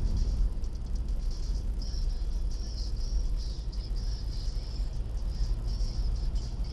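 Car driving at speed, heard from inside the cabin: a steady low road and engine rumble. An on-and-off high-pitched chirring runs over it.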